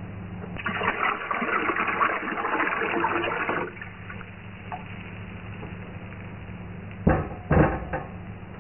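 Liquid poured from a glass measuring cup into a stainless steel pot of cider, splashing for about three seconds. Two short knocks follow near the end.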